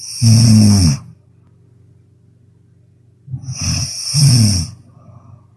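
A person snoring loudly in sleep: two snores, each falling in pitch, one right at the start and one about four seconds in, the second led in by a shorter, broken snore.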